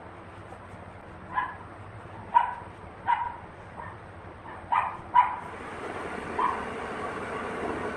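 A dog barking in short single barks, six in all, spaced irregularly, over a steady background hum that grows louder near the end.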